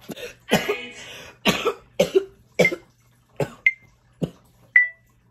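A woman coughing in a fit after a hit of smoke: about eight coughs, roughly one every half second to second, with two short high squeaks between the last few.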